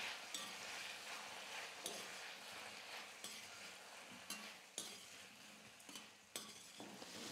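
Faint sizzling of cubed raw plantain sautéing in oil in a stainless steel kadai, stirred with a metal slotted spatula that scrapes the pan and gives a few light clicks.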